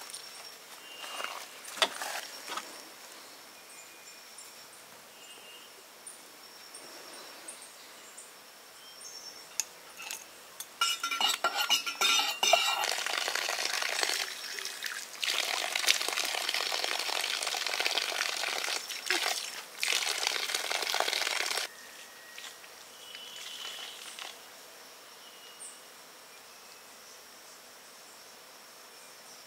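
A paper packet rustles, then a stainless steel thermos clinks as it is opened. Liquid pours from it in a steady stream for about eight seconds, with two short breaks, and stops abruptly. Insects buzz faintly in the background.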